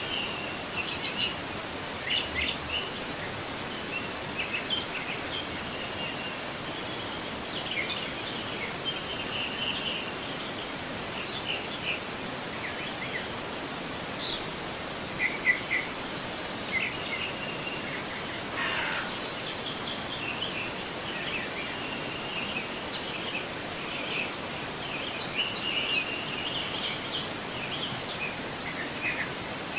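Steady rush of a clear forest river, with small birds chirping and calling over it throughout. About 19 s in, one call slides downward in pitch.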